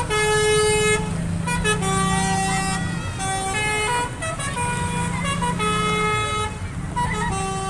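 Indonesian bus 'telolet' horn, a Basuri multi-tone musical air horn on a Dewi Sri bus, playing a tune of held notes that step up and down in pitch over a low steady drone.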